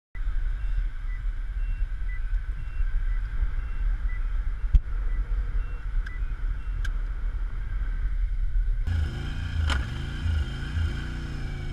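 Steady low road rumble inside a moving car. About nine seconds in it cuts to a motorcycle engine running with its pitch rising and falling.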